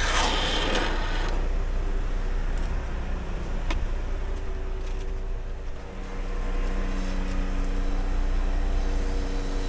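Timber truck's diesel engine running steadily at idle, a low hum whose tone shifts about six seconds in. A brief loud hiss near the start, with a single click a few seconds later.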